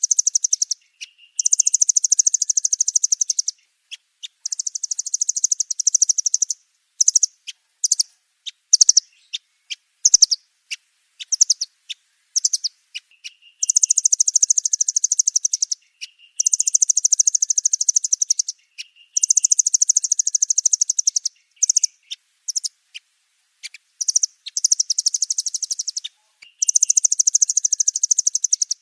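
Nuthatches, including a velvet-fronted nuthatch, calling in long, very high, rapid trills of about two to three seconds each. Short, sharp chips and brief lower notes fall between the trills.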